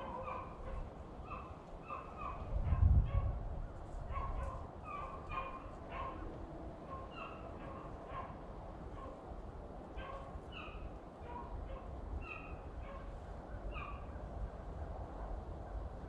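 Beagles baying at a distance, a quick broken string of short high calls, as the hounds run a rabbit's scent trail. A gust of wind rumbles on the microphone about three seconds in.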